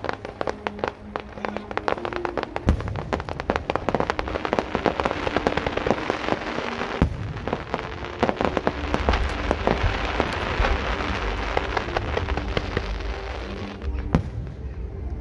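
Aerial fireworks going off in quick succession: a dense rattle of crackles and pops, with a heavier boom about three seconds in and another about seven seconds in. Music plays faintly underneath.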